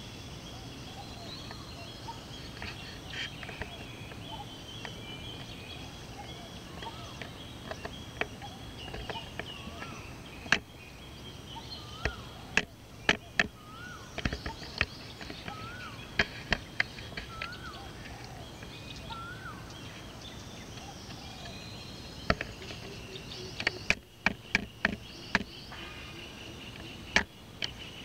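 Birds calling and chirping around a pond, including a short rising note repeated several times in the middle, over a steady high background note. Sharp clicks or taps come in the middle and later part and stand out above the birdsong.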